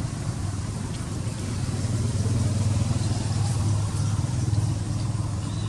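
Steady low engine hum of a motor vehicle running, a little louder around the middle.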